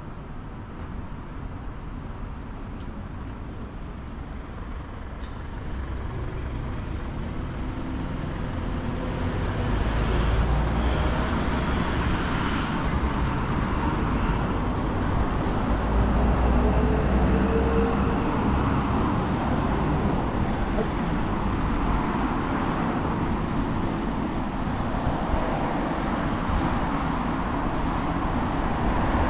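Road traffic on a busy street: cars and heavier vehicles such as buses or trucks passing. It grows louder over the first several seconds and stays loud.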